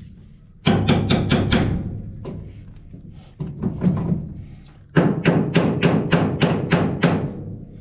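Steel hammer striking a steel punch to drive a stuck double roll pin out of a corn head sprocket hub: sharp metallic blows in three quick runs, about four or five a second, the longest run near the end. The pin is starting to move.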